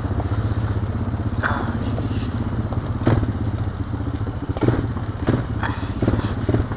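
Honda Recon ATV's single-cylinder four-stroke engine running as it rides over a rocky trail, with several knocks and clatters as the machine jolts over rocks.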